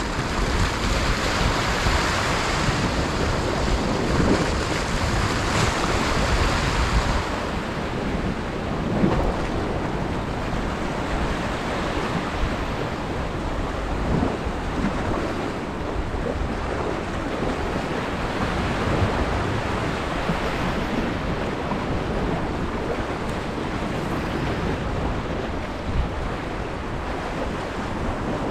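Sea waves washing and wind buffeting the microphone, a steady rush that is brighter and hissier for the first seven seconds or so, then duller. A light knock about nine seconds in and another near the end.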